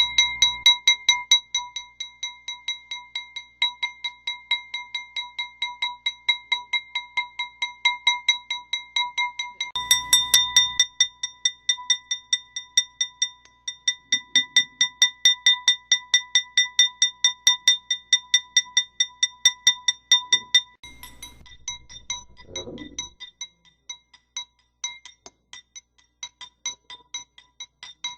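A metal spoon clinking against the inside of a wine glass of coffee as it is stirred, about four quick taps a second, each ringing at a steady pitch. The tapping breaks off and restarts twice, about ten and twenty-one seconds in, and the last run is fainter.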